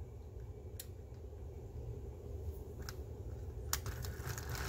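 Small motor and gearbox of an HO-scale brass steam locomotive being handled under power: a low steady hum, a few faint clicks, then a short rasping hiss near the end. The gearbox is binding, so the motor barely turns although current is flowing.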